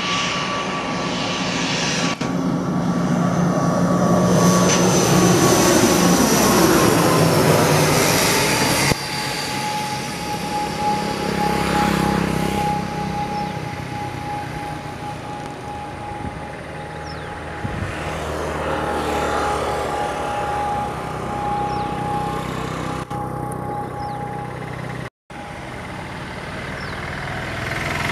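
ATR 72-600 turboprop airliner on approach, its two Pratt & Whitney PW127 turboprop engines and propellers droning loudly with a steady high tone. The pitch falls as the aircraft passes about six to eight seconds in. The sound breaks off abruptly about nine seconds in and drops out briefly near the end.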